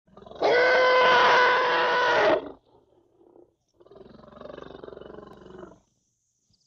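Young African elephant calling: a loud, steady, high-pitched call lasting about two seconds that cuts off sharply, then, after a short pause, a much quieter and lower pulsing call of about two seconds.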